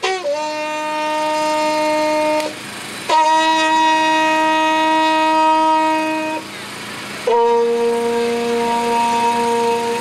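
An ensemble of tulnics, long wooden Romanian shepherd horns, sounding long held notes together. Three sustained notes of about two to three seconds each, separated by short breaks: the second begins about three seconds in at a higher pitch, the third about seven seconds in.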